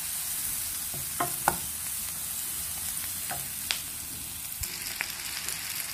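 Vegetables sizzling in hot oil in a non-stick frying pan as they are stirred with a wooden spatula, with a few light knocks of the spatula against the pan.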